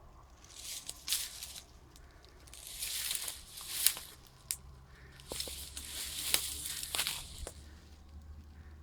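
Crunching footsteps on rough ground, in several uneven clusters of steps with small clicks, over a faint low steady hum.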